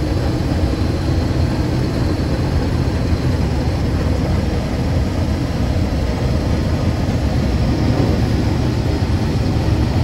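Combine harvester running steadily while harvesting soybeans: a constant, heavy machine noise, strongest low down, that does not change.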